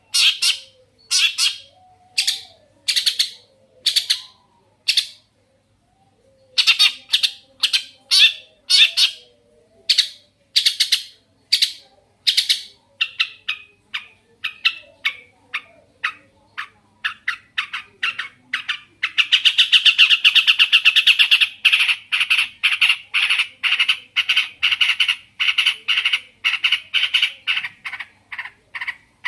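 Long-tailed shrike (cendet) singing a harsh, scratchy song of short notes repeated about twice a second. It breaks off briefly about five seconds in, then speeds up into a fast, unbroken chatter about two-thirds of the way through.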